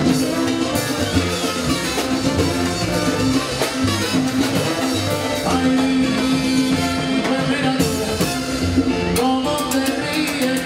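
Live salsa band playing, with trombones over congas and timbales.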